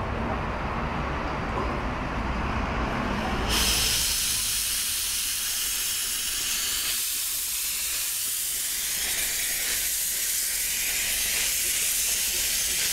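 A small narrow-gauge steam locomotive pulling away. A few seconds in, a loud, steady steam hiss starts and runs on.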